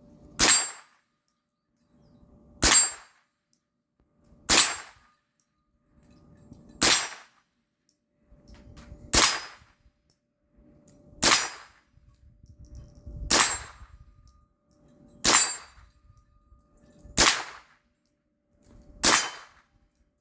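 Smith & Wesson M&P15-22 semi-automatic .22 LR rifle fired ten single shots at a steady pace, about one every two seconds.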